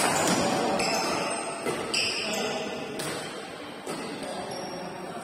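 Badminton rally: rackets striking the shuttlecock several times in quick succession, the strokes coming every half second to a second.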